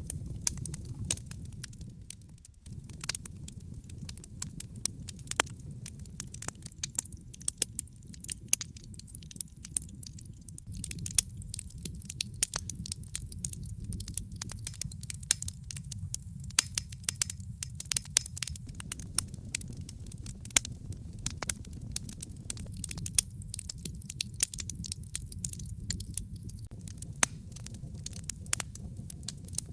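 Wood fire burning in a fireplace, crackling with many sharp, irregular pops and snaps over a steady low rumble from the flames.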